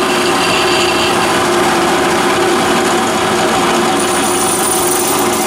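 Bench grinder running steadily while an abrasive dressing stick is pressed against its spinning wheel, grinding the glaze off the wheel to clean it. A thin high whine joins the grinder's sound about four seconds in.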